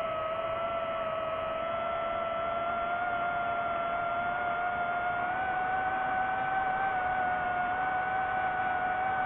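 DJI FPV drone's motors and propellers whining steadily in fast forward flight, the pitch edging up slightly about halfway through.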